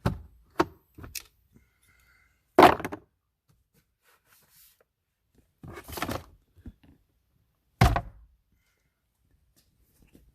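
A few separate knocks and thunks, the loudest about two and a half seconds in and again near eight seconds, with a brief scraping rustle around six seconds in.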